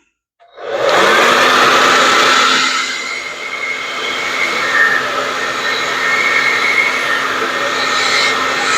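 Handheld blow dryer switched on about half a second in, its motor spinning up to a steady whir of rushing air. It is blowing wet acrylic paint across a tile in a Dutch pour.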